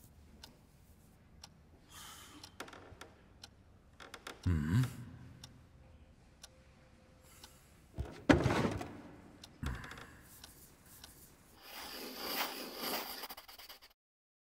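A few small knocks and creaks in a quiet, echoing hall, the loudest a sharp thud on a wooden table a little after eight seconds in, with a hiss-like rustle around twelve seconds; the sound cuts out suddenly near the end.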